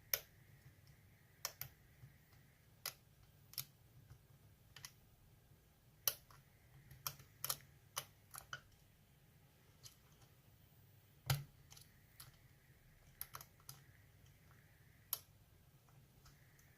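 Metal lock pick and tension wrench clicking against the pins inside a pin-tumbler challenge lock as pins are lifted and set one by one: irregular small sharp clicks, with one louder knock about eleven seconds in.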